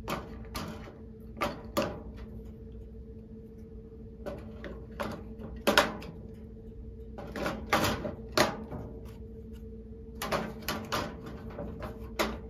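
AA batteries being pressed into the plastic battery holder inside a gun safe's door and its cap handled: a dozen or so irregular small clicks and knocks, over a faint steady hum.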